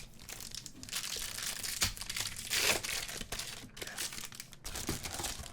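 Foil wrapper of a Pokémon TCG booster pack crinkling close to the microphone as it is handled and torn open, with a louder stretch of crinkling about two to three seconds in.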